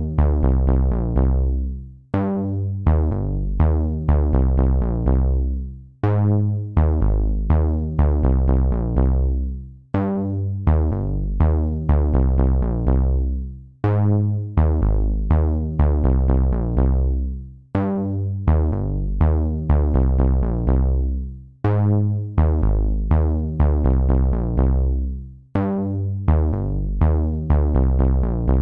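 Electronic background music with a steady beat, strong bass and synthesizer notes; the same phrase repeats about every four seconds.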